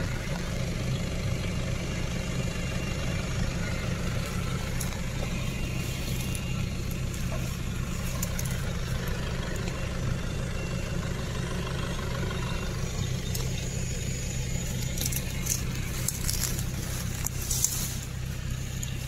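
Nissan Patrol GR Y61 4x4's engine idling steadily while the truck sits stuck in mud. Near the end there is some brushing and rustling close to the microphone.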